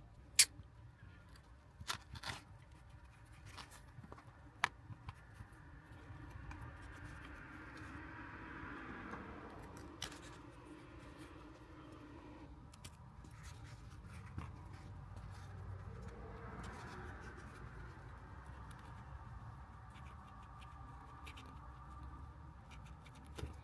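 A few sharp clicks and snips in the first few seconds and another near the middle, then low scraping and rustling as the shift boot and shifter parts are handled and trimmed.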